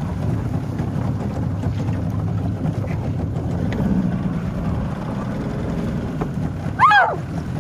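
Small boat engine idling steadily with a low hum. Near the end, a loud, short cry falling in pitch.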